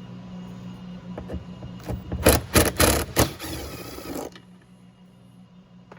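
A loud burst of mechanical rattling clatter from removing the door panel's T25 Torx screws. It starts about two seconds in, runs for around two seconds and cuts off abruptly, over a steady low hum.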